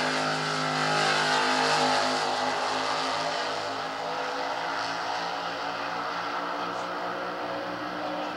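Engines of two Super Stock drag cars at full throttle running down the drag strip. They give a steady engine note that slowly fades as the cars pull away.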